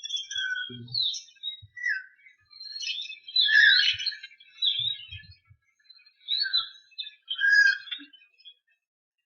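Budgerigars chirping: quick bursts of short, high, sliding calls, busiest a few seconds in.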